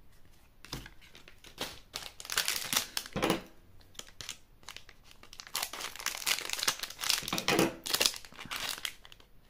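Foil wrapper of a Super Dragon Ball Heroes gummy-and-card pack crinkling in the hands as it is handled and pulled open, in two spells of crackling: from about a second in to three and a half seconds, then again from about five and a half seconds to near the end.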